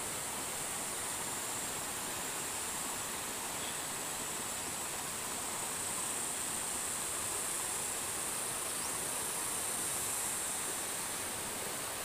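Shallow river running over a stony bed: a steady rush of water.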